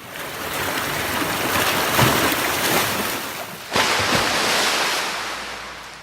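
Ocean surf: waves breaking and washing ashore, with a fresh surge about four seconds in before the sound fades away.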